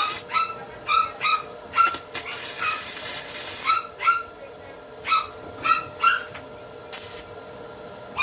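A small dog yapping repeatedly, short high yelps coming in quick runs of two or three, with brief bursts of hissing noise between them.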